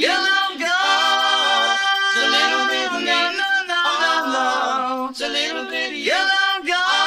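Isolated 1960s pop vocal track: male singing in long held vowel notes, sliding up into pitch at the start and again near the end, with no instruments.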